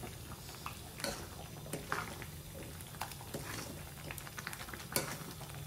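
Chicken curry gravy simmering in a pan: a steady bubbling sizzle with scattered sharp pops.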